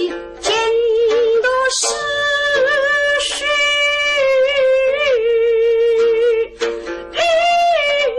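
A woman sings a line of Suzhou tanci (pingtan ballad) in long, drawn-out notes that waver in pitch, accompanied by her own plucked pipa.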